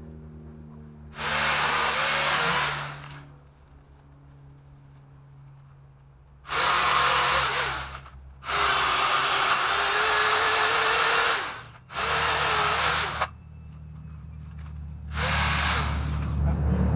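Pole saw's motor running in five short bursts of high whine, each a second or few long, the pitch sagging as each burst winds down.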